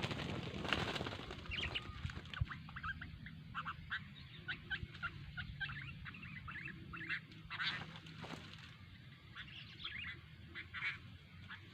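A bird calling over and over in quick, short chirps, several a second, with a few louder, longer notes along the way.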